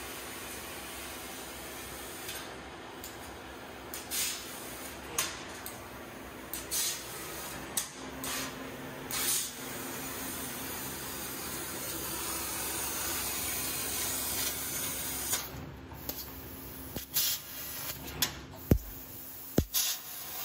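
Fiber laser cutting machine cutting sheet metal: a steady hiss of assist gas from the cutting head, broken by scattered sharp pops and clicks that come sharper and closer together near the end.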